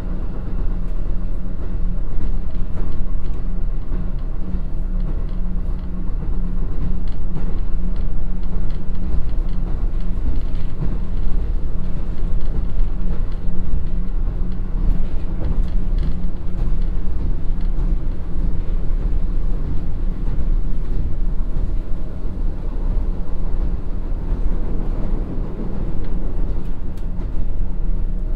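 Cabin running sound of a KiHa 54-500 diesel railcar with twin Niigata DMF13HS engines: a steady engine drone under the rumble of wheels on rail. In the second half the car slows from about 79 to about 60 km/h.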